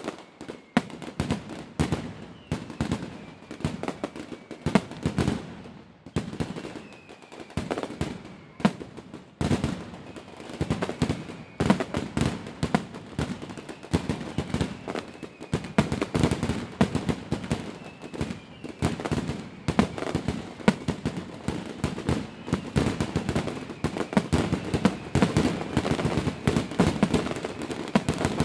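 Fireworks going off in a rapid, irregular barrage of bangs and crackles, many reports a second, growing louder toward the end.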